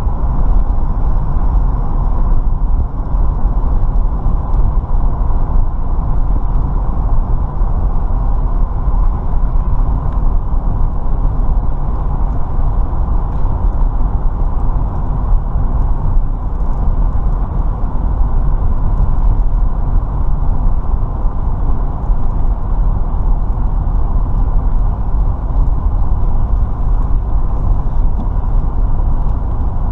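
Steady rumble of a car driving along a paved road: tyre and wind noise, heavy in the low end and unchanging throughout.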